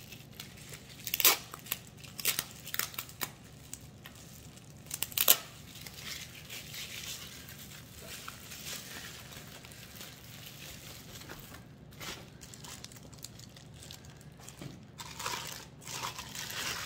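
Packing material crinkling and tearing as an item is unwrapped by hand. There are short sharp crackles, loudest about a second in and about five seconds in, softer rustling between them, and another run of crackling near the end.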